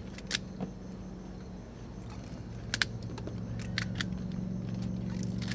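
Rubber bands being stretched and released onto a watermelon one at a time, making several sharp snaps a second or more apart, two close together near the middle. A steady low hum runs underneath and grows slightly louder.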